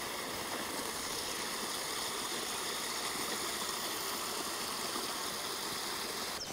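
Shallow creek water running steadily, a small stream flowing over a shallow bed.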